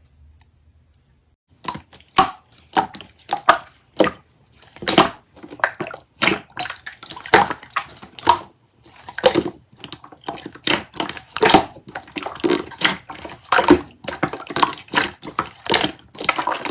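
Slime being squished and pressed by hand: a fast, irregular run of wet clicks and squelching pops that starts about a second and a half in, after a brief quiet.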